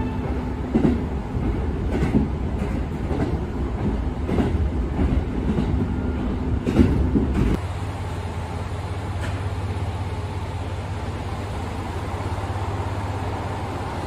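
Diesel railcar heard from inside, running along the line with its wheels clicking over rail joints roughly once a second. About seven and a half seconds in it changes abruptly to a quieter, steady low hum of diesel railcars idling at a station platform.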